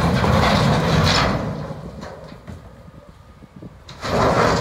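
Large boulders sliding and tumbling out of the tipped bed of a Komatsu HM300 articulated dump truck, a heavy rumble of grinding and crashing stone that dies away after about a second and a half. It surges again about four seconds in as the last rocks slide out.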